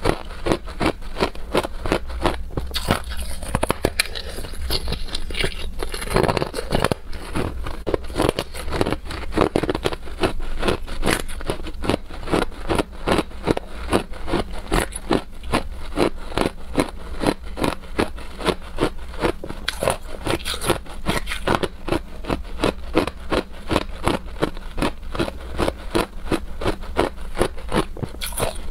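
Hard clear ice being bitten and chewed at close range: a steady run of crisp crunches, about two to three a second.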